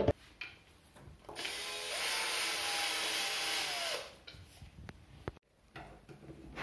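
Cordless drill-driver motor spinning up about a second in, running steadily for nearly three seconds, then winding down. A sharp click comes at the very start.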